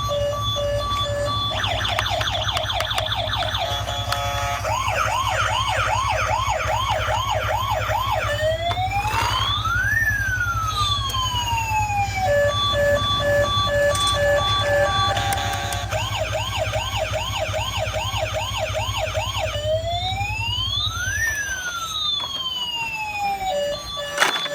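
Electronic toy siren cycling through its patterns: a pulsing beep, a fast warbling yelp, and a slow wail rising and falling in pitch, the whole sequence playing twice. A low steady hum runs underneath and stops near the end.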